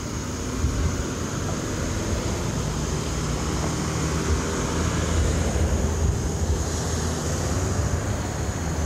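Road traffic going by: a steady rumble of car engines and tyre noise.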